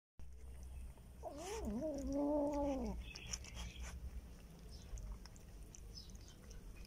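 A cat gives one drawn-out, wavering call nearly two seconds long, about a second in, falling in pitch at the end. After it come faint small clicks and rustles of a kitten eating wet food out of a plastic bag.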